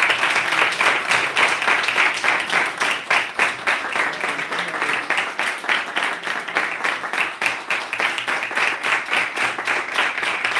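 A small audience applauding, many hands clapping continuously, easing slightly in the second half.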